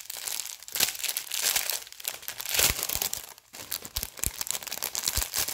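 Clear plastic packaging crinkling and rustling in uneven bursts as it is handled, with a few short dull knocks near the end.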